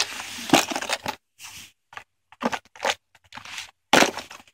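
Clear plastic tackle box being picked up and handled on carpet: irregular plastic scrapes and clicks, with a louder burst of sharp clicks about four seconds in as his hand works the box's snap latches.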